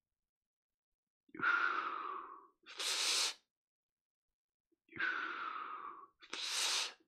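A man's deep, audible breaths during a breathing exercise: two breath cycles, each a long breath of about a second followed by a shorter, sharper rush of air.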